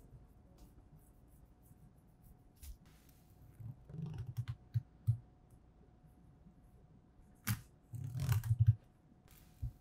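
Chef's knife cutting into a whole olive flounder on a plastic cutting board: short scraping cuts and knocks of the blade against the board, in a cluster about four seconds in and a louder one about eight seconds in, with a sharp click near the end.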